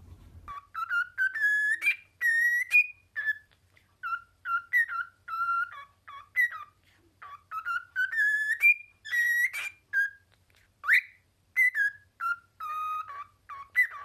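Cockatiel whistling a long run of short, clear notes that step up and down in pitch, with one quick upward swoop late on.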